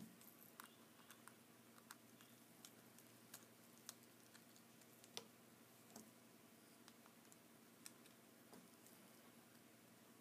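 Near silence with faint, irregular small clicks and taps: tiny screws and a small screwdriver being handled against a Subaru Baja key fob's case as the screws are put back in.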